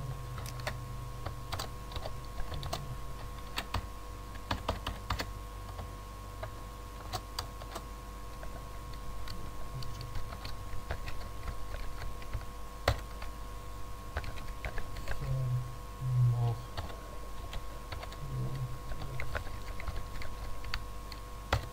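Typing on a computer keyboard: irregular keystroke clicks at an uneven pace, over a steady faint electrical hum.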